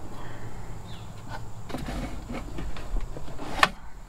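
Bungee cords being hooked around a Jeep's roll bar while fitting a sunshade: scattered light knocks and clicks over a low steady rumble, with one sharp click about three and a half seconds in.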